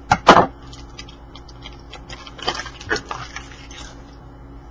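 A hockey-card flat pack's wrapper crinkling as it is handled and opened. Two sharp, loud crackles come near the start and two more about two and a half seconds in, with lighter rustling between.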